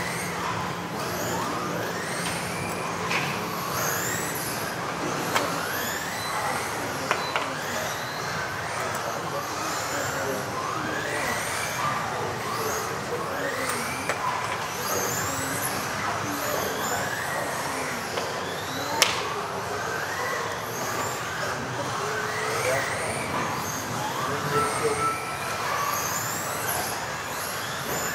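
Several 1:10 electric RC off-road buggies racing at once, their motors whining in overlapping pitches that rise and fall as the cars accelerate and brake. A few sharp knocks, the loudest about two thirds through, as cars hit the track or each other.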